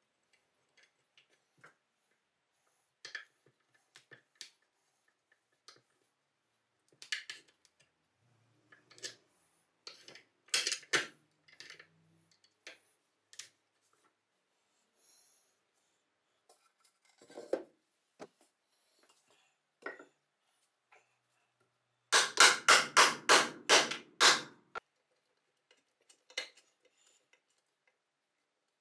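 Metal parts of a restored antique meat chopper being handled and fitted together: scattered light clicks and knocks. Later comes a quick run of about ten sharper knocks, roughly four a second, the loudest sound.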